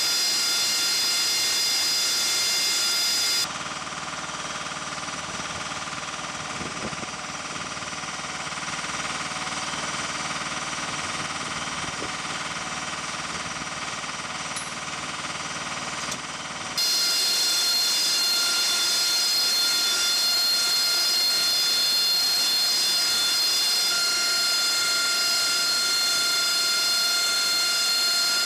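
Steady jet-turbine whine over a hiss, several high tones held level. About three seconds in it cuts abruptly to a quieter, lower-pitched hum, and near seventeen seconds the louder, higher whine cuts back in.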